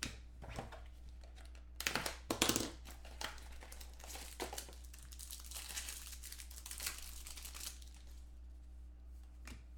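A trading card pack being torn open by hand: tearing and crinkling of the wrapper, loudest about two seconds in, then a longer run of crinkling.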